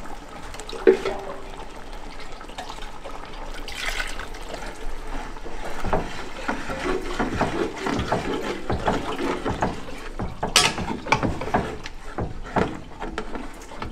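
Broth poured from a measuring cup into a big aluminium pot of gumbo, then a spoon scraping the bottom and stirring through the thick liquid. From about six seconds in come repeated scrapes and knocks of the spoon against the pot.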